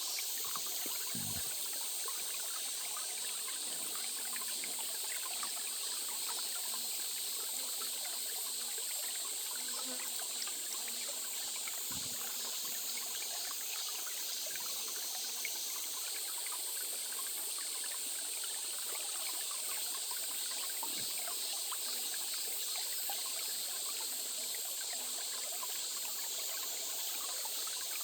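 A small stream trickling and gurgling steadily over stones, an even running-water sound with no break.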